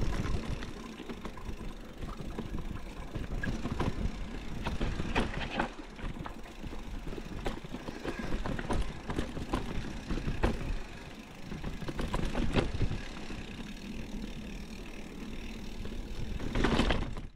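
Mountain bike riding over a dirt singletrack: a steady low rumble of tyres and wind on the microphone, broken by scattered clicks and rattles of the bike over bumps, with a louder rush near the end.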